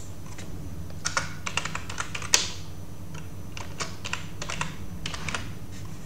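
Typing on a computer keyboard: two quick runs of keystrokes with a short pause between them, and one keystroke much louder than the rest a little before halfway.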